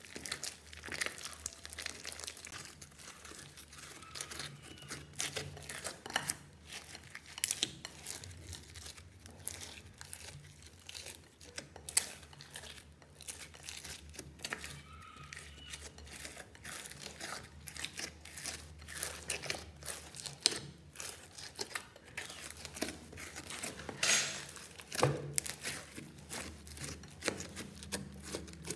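Foamy white slime being squeezed and kneaded by hand in a glass bowl: irregular crackling and popping, with a few louder pops among them.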